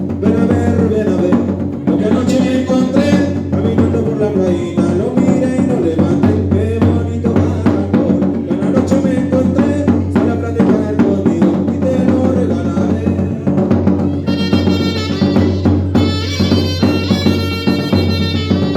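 A band playing: drums with snare and bass drum keep a steady beat under a winding melody line.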